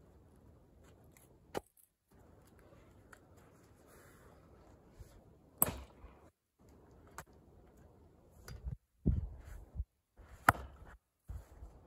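An axe striking and splitting firewood rounds on a chopping block: several sharp cracking blows, the loudest about five and a half and ten and a half seconds in. Around nine seconds in there are a few duller, low thuds.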